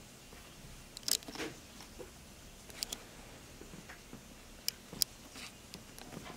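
A domestic cat grooming, licking its paw and face close to the microphone: soft wet licking with a few sharp little mouth clicks, about a second in, near three seconds, and twice around five seconds.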